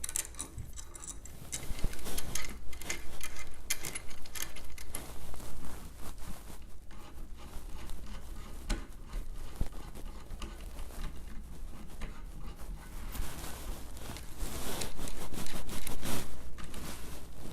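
Hands fumbling with small metal parts: irregular clicks, taps and scraping as a brace rod end and its screw are worked into a mounting hole on a 3D printer's frame, with a busier stretch of rubbing and clicking near the end.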